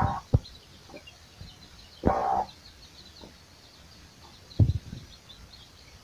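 Domestic hen clucking a few times, with a longer call about two seconds in, over chicks peeping faintly and continuously.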